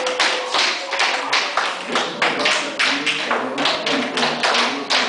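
Tap shoes striking a dance floor in a quick, uneven rhythm of several taps a second, with music underneath.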